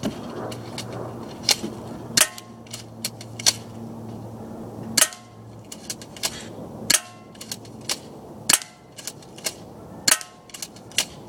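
Crosman Stinger S32P airsoft shotgun firing shot after shot, a sharp snap every one to two seconds with lighter clicks in between. Some shots are followed by a brief metallic ring.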